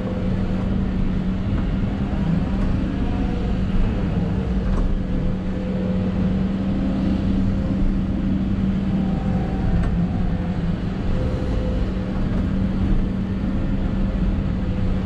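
Hidromek 220 LC excavator's diesel engine running steadily under working load, heard from inside the operator's cab, with a steady low hum through a dig-and-dump loading cycle. A few faint knocks sound over it.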